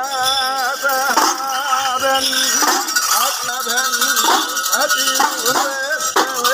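A group of udukku, the small hourglass drums of Kerala temple music, played together in a steady beat, their tone wavering and swooping up and down as the players squeeze the lacing.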